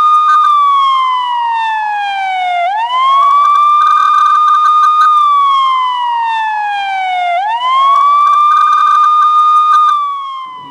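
Electronic siren wailing: the tone climbs quickly, holds, then slides slowly down, repeating about every four and a half seconds. It fades out near the end.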